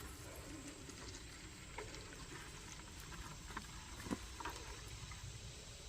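Engine oil draining from a Yamaha 115 VMAX outboard's drain-plug hole into a bucket: a faint, steady trickle with a few small clicks.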